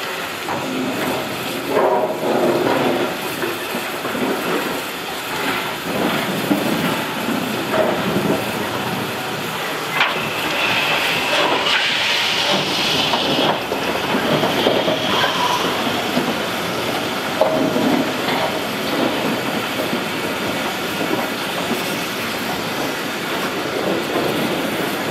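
Steam tank engine and goods wagons rolling slowly past, their wheels clicking and clattering over the rail joints, with a hiss for a few seconds around the middle.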